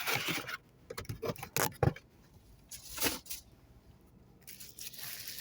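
Plastic packaging bags rustling and crinkling as they are handled, in short spells with quieter gaps, mixed with a few light clicks and knocks.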